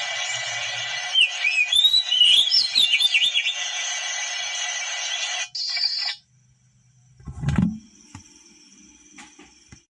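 Oriental magpie-robin (kacer) song: a fast run of whistled glides and trills over a steady hiss, breaking off suddenly about six seconds in. A low thump comes about a second and a half later, followed by faint steady tones.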